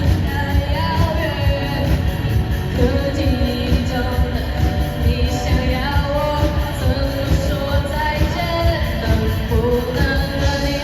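A pop-rock song with a singer's melody over a steady band beat.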